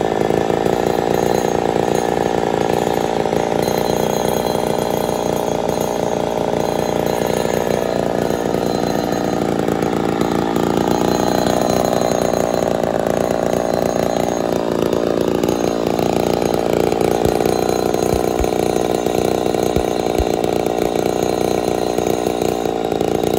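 Ported Poulan 245A two-stroke chainsaw idling steadily, its pitch wavering briefly about two-thirds of the way through.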